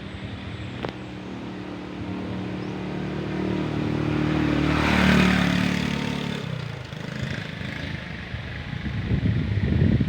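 A motor vehicle passes by, its engine growing louder to a peak about halfway through, then dropping in pitch and fading as it moves away. Wind buffets the microphone near the end.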